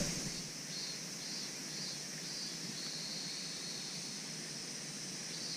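Outdoor summer ambience: a steady, high-pitched insect drone over a faint hiss.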